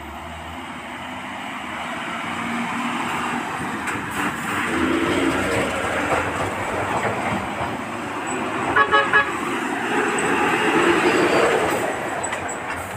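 Diesel dump trucks driving past on a dirt haul road, the engine noise growing louder as they come by, with three short horn toots about nine seconds in.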